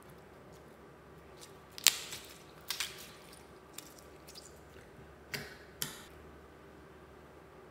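Clear glitter slime being squeezed and stretched by hand, giving a few short sharp pops and clicks, the loudest about two seconds in and two more between five and six seconds.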